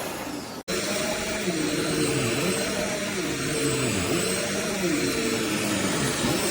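Vacuum cleaner running, its drone sweeping down and back up in pitch about once a second. It cuts out for an instant under a second in.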